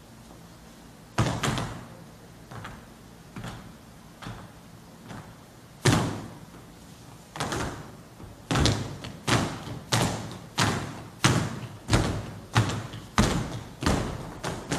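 Sharp percussive strikes from the jota dancers on stage, each with a short ringing echo. They come singly and irregularly at first, then settle into a steady beat of about three strikes every two seconds from a little past halfway.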